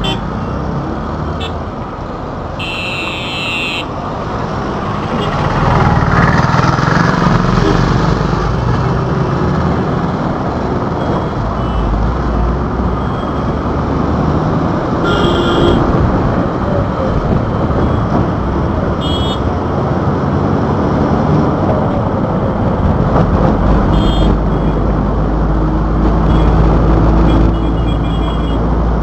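Busy road traffic heard from inside a moving vehicle: a steady rumble of engines, tyres and wind. Short vehicle horn beeps sound about five times, near the start, midway and toward the end.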